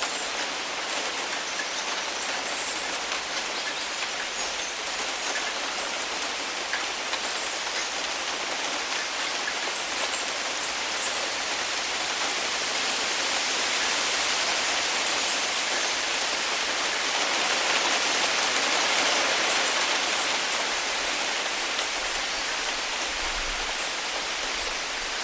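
Heavy rain falling steadily, a dense even hiss of drops that swells a little in the middle.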